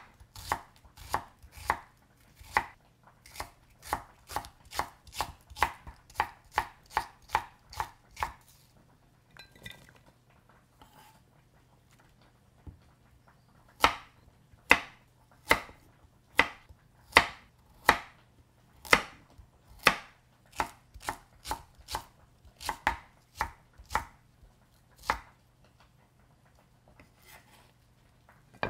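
Kitchen knife chopping food on a cutting board: a run of evenly spaced chops, two to three a second, for about eight seconds, then after a pause a second, slower run of chops that stops a few seconds before the end.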